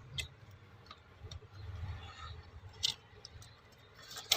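A few faint, scattered clicks and light taps over a low steady hum.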